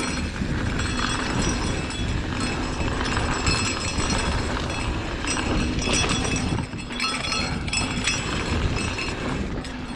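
Mountain bike descending dry, loose, powdery dirt singletrack: tyres rolling and skittering over the trail, with the bike's chain and frame rattling in a steady clatter of small knocks.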